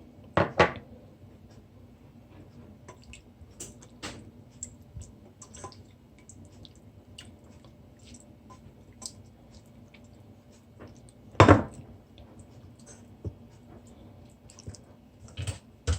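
Lemon juice dripping into a bowl as a lemon is squeezed by hand, with scattered small clicks and two sharper knocks of kitchenware, one about half a second in and one near the twelfth second.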